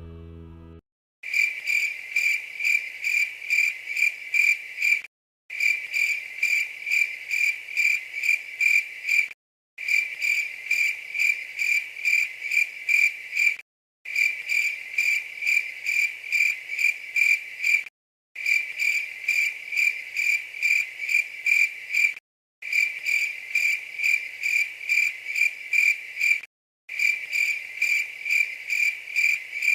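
Cricket chirping, a fast pulsing high chirp, repeating in near-identical stretches of about four seconds with short dead-silent breaks between them, like a looped sound-effect clip.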